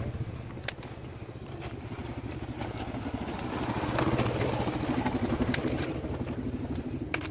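Small motorcycle engine running with a fast, even putter as the bike rides slowly over the rocky trail and passes close by. It is loudest about four seconds in.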